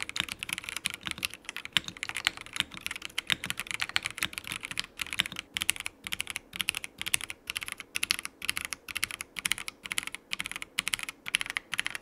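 Typing sound test on a Keychron C3 Pro mechanical keyboard with red linear switches: fast, continuous keystrokes with a few brief pauses.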